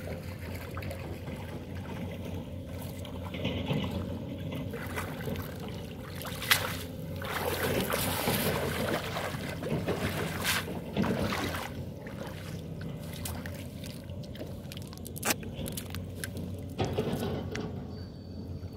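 Shallow river water sloshing and splashing as a fisherman wades and handles a wet cast net, louder for a few seconds in the middle, with two sharp knocks and a steady low hum underneath.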